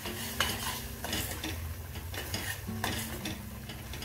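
Stainless steel slotted spoon repeatedly scraping and clinking against a steel pot while stirring a thick tomato-onion masala, with a soft sizzle of the paste frying in oil as the spices are cooked in.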